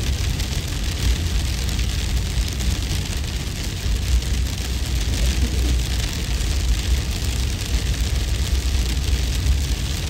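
Steady, unbroken wind-storm noise: a deep rumble under an even hiss.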